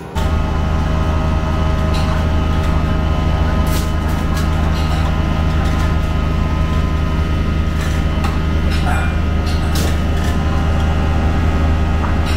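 Steady, loud drone of a ramen kitchen's exhaust hood and gas burners under stockpots, with a few short sharp clatters of utensils and pots.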